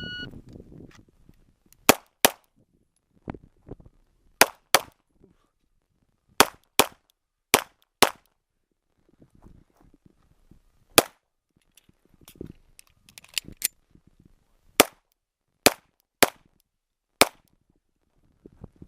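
Shot timer's start beep, then a pistol firing about fifteen shots, mostly as quick pairs about a third of a second apart, with pauses of one to three seconds between strings as the course of fire goes on.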